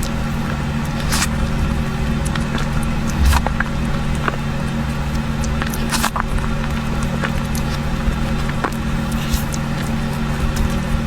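Scattered short wet clicks and squishes of creamy fruit cake being eaten, over a steady low hum.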